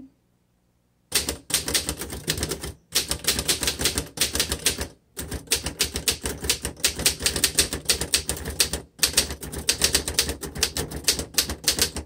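1924 Royal 10 manual typewriter being typed on: quick runs of keystrokes, the typebars clacking against the platen. The typing starts about a second in and breaks off briefly three times.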